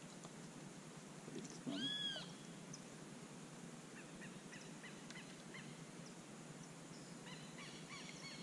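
Faint outdoor ambience with a single drawn-out animal call, rising then falling in pitch, about two seconds in, then a run of short, quick repeated calls starting near the end.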